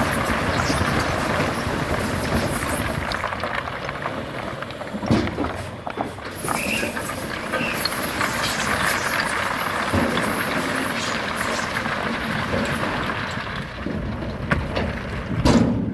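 Heavy earthmoving machinery at work on stone and gravel: a dense, steady engine noise with scattered knocks and clatter.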